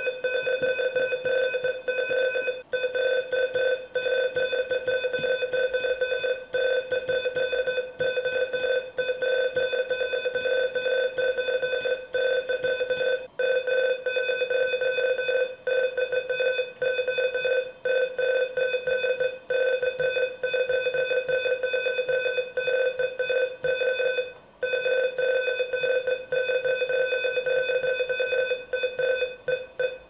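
Morse code sidetone, a steady beep near 500 Hz, keyed very fast (about 40 wpm) by an iambic keyer from a dual-lever paddle, sending a Byron verse. Brief pauses fall between words. Rapid ticking rides over the tone for about the first half.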